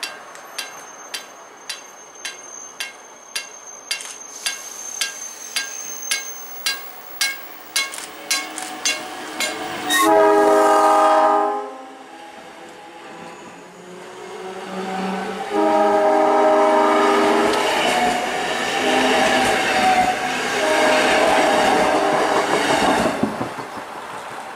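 South Shore Line electric commuter train passing a station platform. A steady run of sharp clicks comes closer together, then the horn sounds loudly for about a second and a half. A second blast follows a few seconds later, then fainter horn sounds over the rumble of the passing cars.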